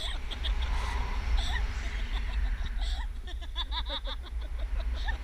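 Wind buffeting a camera microphone in tandem paraglider flight, a steady low rumble, with a girl passenger laughing in short bursts, most strongly about four seconds in.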